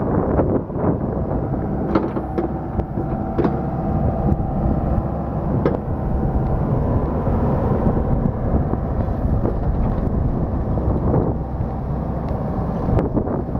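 Komatsu PC78-6 compact excavator's diesel engine running steadily with the hydraulics at rest, with a few sharp clicks in the first six seconds.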